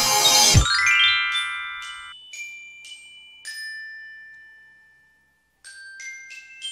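A music track cuts off about half a second in, then a glockenspiel jingle plays: a quick rising run of ringing notes, a few single notes that ring and fade, a brief pause, then several more quick chime notes.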